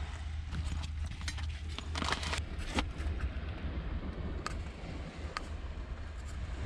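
A few short, sharp clicks and light knocks at irregular moments, with a small cluster about two seconds in, over a steady low rumble of wind on the microphone.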